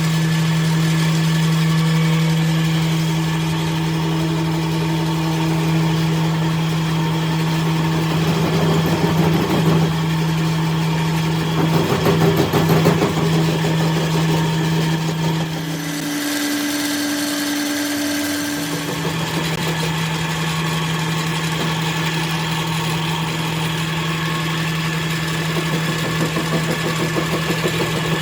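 A machine's motor running with a steady hum. For about three seconds, around two-thirds of the way through, the hum gives way to a single higher tone before resuming. There is some rattling around the middle.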